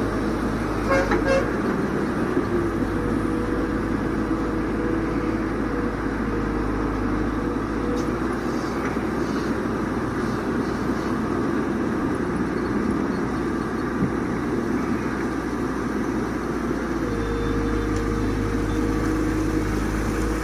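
Diesel engine of a Tata Hitachi excavator running steadily, with a faint held whine over the engine drone; late on the low engine hum grows stronger.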